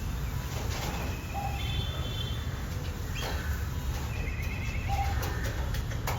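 Crow making short, repeated cough-like calls, several times, over a steady low rumble; the uploader wonders whether a blocked windpipe is the cause.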